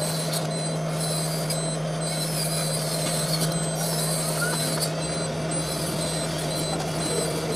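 Tower crane operating, heard from the operator's cab: a steady low electric drive hum with a rapid, high pulsing warning beep over it.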